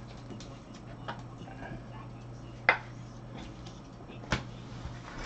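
Light plastic clicks and taps from handling a trading card in a clear rigid plastic holder and setting it on an acrylic stand, with two sharper clicks about two and a half and four and a half seconds in, over a low steady hum.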